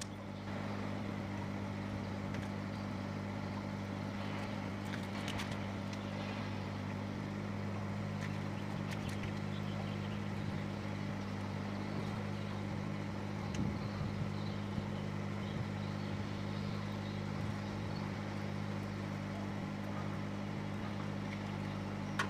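A boat's engine idling, a steady low hum at an unchanging pitch.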